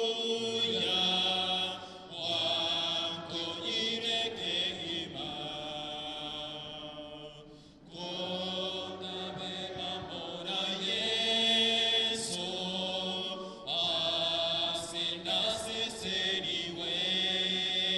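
Church congregation singing a hymn, led by men's voices on microphones, in long held notes with brief pauses between phrases.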